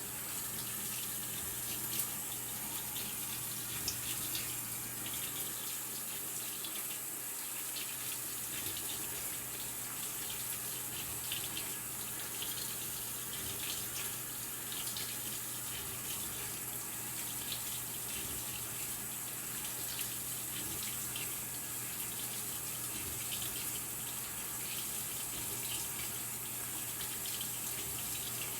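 Maytag Bravos XL top-loading washing machine filling with water for a wash: a steady stream of running water with a low steady hum beneath it and a few faint ticks.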